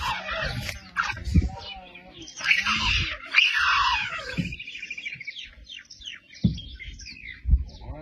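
Bird chirping, with a quick run of short falling notes about halfway through, over a few sharp low thumps.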